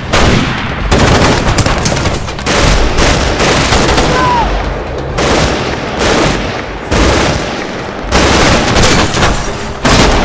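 Film-shootout gunfire sound effects: rapid bursts of automatic fire mixed with single shots in a dense exchange, with brief lulls between volleys.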